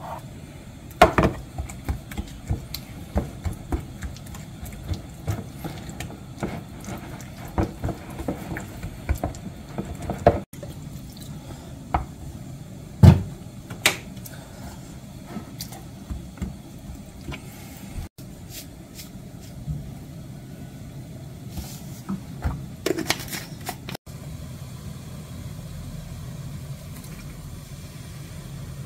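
Kitchen food-prep sounds: a wooden spoon scooping from a plastic tub and stirring a thick chili-paste sauce in a ceramic bowl, with scattered clicks and taps of spoon and jars and one sharp knock about 13 seconds in. Liquid seasonings, mirin and fish sauce, are poured in.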